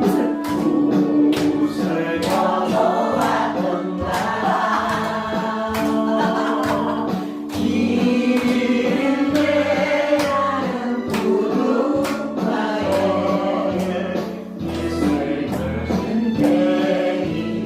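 Music: a song with several voices singing over a steady beat.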